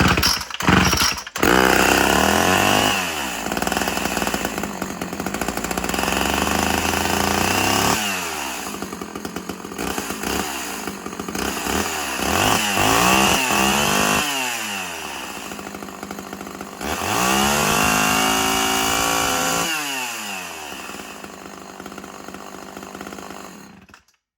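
Two-stroke chainsaw engine running, revved up and held high, then dropping back to idle several times, before cutting off abruptly near the end. It sounds like a saw with its carburetor no longer running rich, as the owner says it now runs better.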